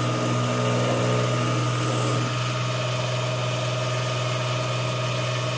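Small 775 DC motor of a belt-driven toolpost drill running steadily with a constant hum, spinning the drill as it goes back over freshly cross-drilled holes. Extra tones ride on it for about the first two seconds, then it settles.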